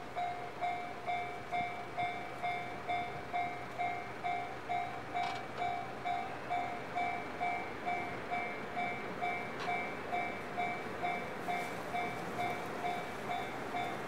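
Japanese level-crossing warning bell ringing with an even, repeating electronic clang, a little over two strikes a second. The crossing is active with its barrier down, the signal that a train is approaching.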